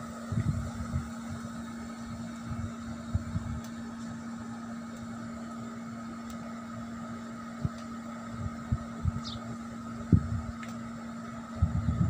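A steady mechanical hum, with scattered low thumps and one short, high, falling chirp about nine seconds in.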